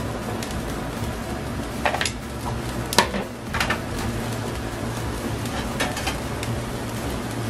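Squid-ink broth simmering in a steel paella pan on a gas burner, over a steady low kitchen hum. Metal tongs clink sharply against the pan a few times, about two and three seconds in, the middle clink the loudest.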